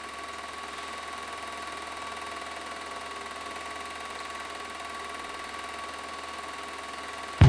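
8mm cine projector running: a steady mechanical whirr with a constant high whine and a low hum.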